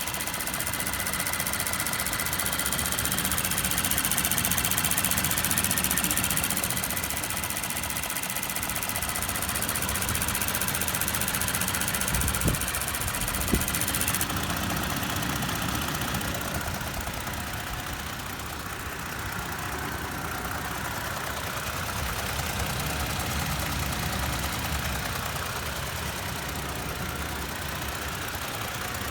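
2019 Toyota Tacoma TRD Off-Road engine running steadily with a clicking noise that the owner finds odd. Two sharper knocks stand out near the middle.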